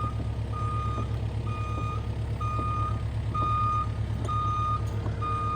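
Excavator's travel alarm beeping about once a second, each beep about half a second long, over the steady hum of its engine running as it moves forward.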